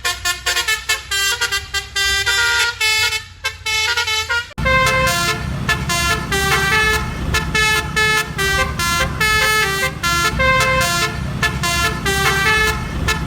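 Upbeat background music: a melody of short, bright notes with a steady beat. It turns fuller, with added bass, about four and a half seconds in.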